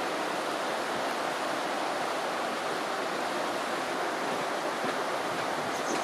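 River water rushing steadily over stones.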